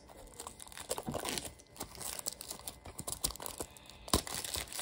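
Boxed diecast model car being handled and turned in the hands: crinkling of the packaging with scattered light clicks and taps, one sharper tap a little after four seconds in.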